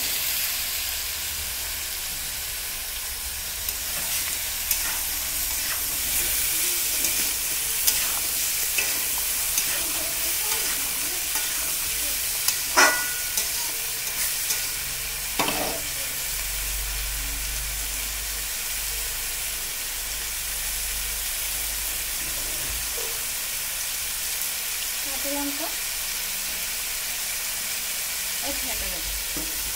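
Pieces of ridge gourd and potato sizzling steadily as they fry in hot oil in a wok, with a few sharp clicks of a spatula stirring against the pan.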